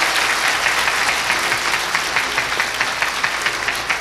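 Live audience applauding: a dense, steady wash of many hands clapping.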